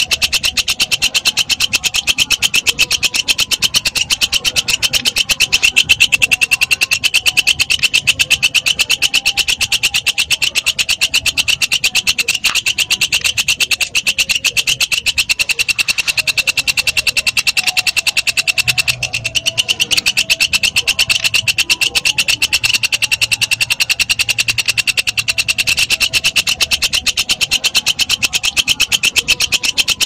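Walang kecek katydid stridulating: a loud, steady, high-pitched buzzing trill of very fast, even pulses.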